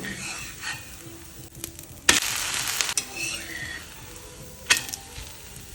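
Dosa frying on a hot griddle: a sizzle, with a louder burst of sizzling lasting about a second, starting about two seconds in, and one sharp click near the end.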